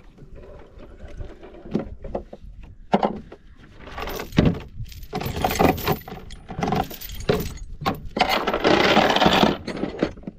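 Metal clinks and knocks from a small boat anchor and dive gear being lifted and handled on a boat deck, with a longer stretch of rustling noise near the end.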